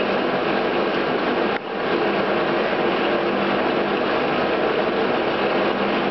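Select 14" x 30" geared-head engine lathe running, a steady mechanical hum with several held tones from its gear drive. A short click and a brief dip in the sound come about one and a half seconds in.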